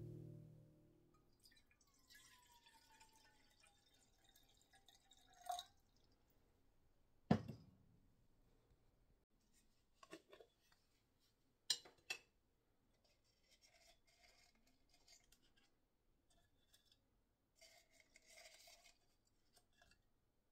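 Water poured from a glass jug into a ceramic teapot: a quiet trickle whose tone falls over a few seconds. Then comes a single sharp knock, the loudest sound, as the jug is set down, followed by a few glassy clicks as a glass jar is opened and soft rustling as bay leaves are taken from it.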